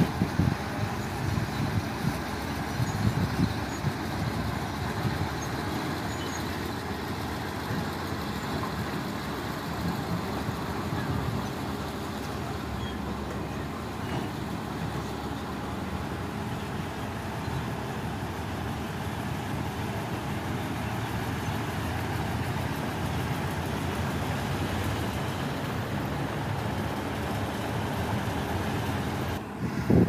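Heavy diesel earthmoving machinery running steadily, a continuous engine noise with no pauses.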